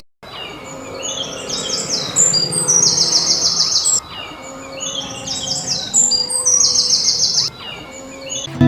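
Outdoor birdsong: a run of high chirps that ends in a short buzzy trill, heard twice in near-identical form.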